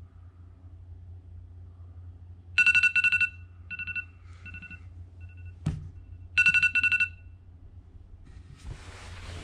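Electronic beeping: two bursts of rapid, pulsed high beeps, with a few shorter beeps and a single click between them, over a low steady hum. A rush of noise starts near the end.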